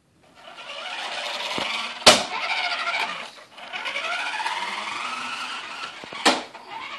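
A toy remote-control monster truck's small electric motor and gears whining as it drives, rising and falling in pitch, in two runs with a brief stop between them. Two sharp knocks, about two seconds in and near the end, as the truck bumps into something.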